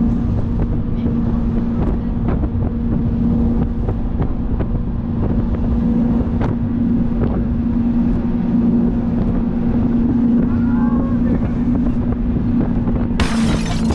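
Jet boat's twin 496-cubic-inch V8 engines running at a steady, even pitch while cruising, with wind on the microphone. A brief rush of noise comes near the end.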